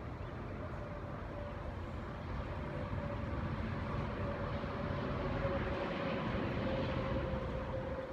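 A motor vehicle running, with a steady hum over a low rumble. It grows louder a few seconds in and eases off near the end.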